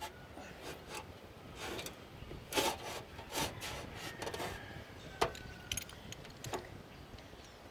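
Scattered clinks, knocks and rubbing from tools and metal parts being handled, with a louder clatter about two and a half seconds in and a sharp knock a little past five seconds.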